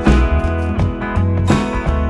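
Background music with a strong bass line and a regular beat about every three-quarters of a second.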